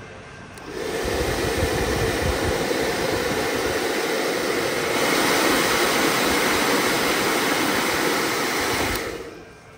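A steady rushing, blowing noise that switches on about a second in and cuts off suddenly near the end.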